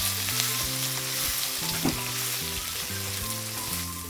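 Chicken pieces with capsicum, onion and tomato sizzling and crackling in hot oil in a pan, with a sharp knock about two seconds in. The sizzle dies down near the end, over soft background music.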